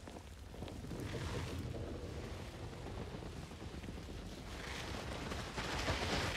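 Rushing wind with a low rumble, swelling louder over the last couple of seconds.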